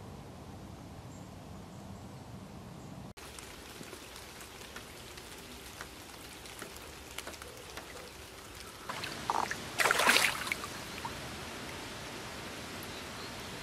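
Light rain falling on a river, scattered drops ticking on the water and leaves. About nine seconds in comes a louder burst of splashing that lasts under two seconds.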